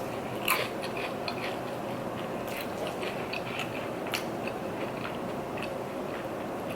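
A person chewing food close to the microphone: scattered small mouth clicks over a steady background hiss.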